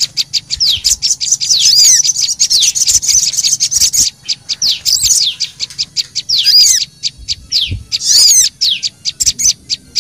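Bird-lure recording of sogon and prenjak lumut calls mixed together: a dense, excited stream of rapid high chirps and quick downward-sweeping notes, played to draw small birds in.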